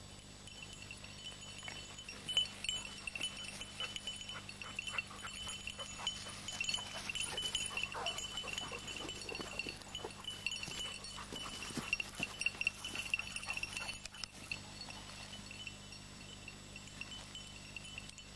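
A small bell jingling quickly and irregularly, loudest from about two to fourteen seconds in and fading after that, with light rustling.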